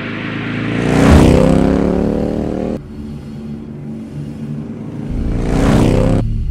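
Two motor vehicles passing by, each swelling to a peak with its engine note falling as it goes past, then cut off abruptly, the first about three seconds in and the second near the end, over a low steady drone.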